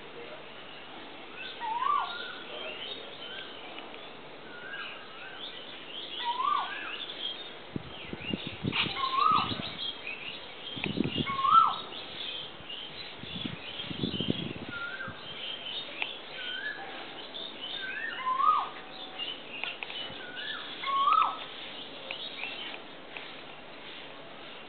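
Birds calling in the trees: a short hooked whistle, rising then dropping, repeats every few seconds over steady high twittering chirps. A few low rumbles come in around the middle.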